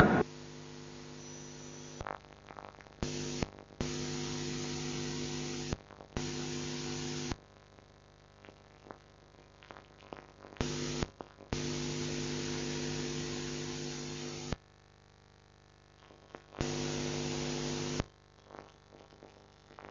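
Electrical mains hum with tape hiss on a VHS recording's soundtrack, cutting in and out abruptly about seven times in stretches of half a second to three seconds, with near silence between. No sound from the fight itself comes through.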